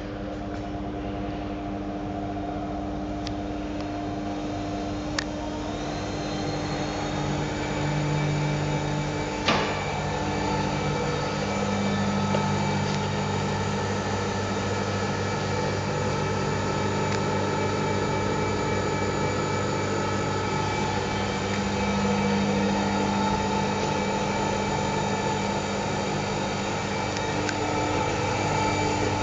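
Electric gear motors of a SAF Oerlikon Posimatic 7F welding positioner running as the table is driven round and tilted: a steady mechanical hum with whining tones. There is a sharp click about five seconds in and a louder one just before ten seconds.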